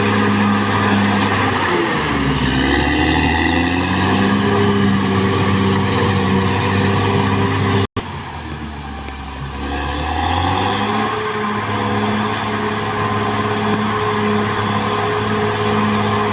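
Caterpillar D6R XL bulldozer's diesel engine running steadily, its pitch dipping lower about two seconds in and again just after a split-second dropout near the middle, then climbing back to its steady note.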